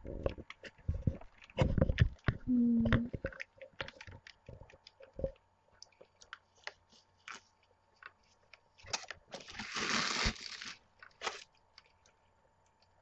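Tissue paper crinkling and rustling, with small knocks against a cardboard box, as boots are unwrapped by hand. The crackles come in scattered short bursts, with a longer, louder crinkle about nine seconds in.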